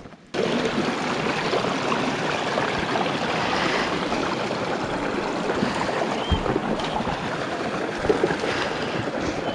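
Creek water rushing over rocks, a steady rushing noise that starts abruptly about a third of a second in.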